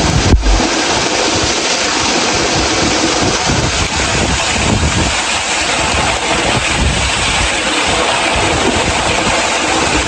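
Waterfall: a steady, loud rush of falling water close to the microphone, with one sharp thump just under half a second in.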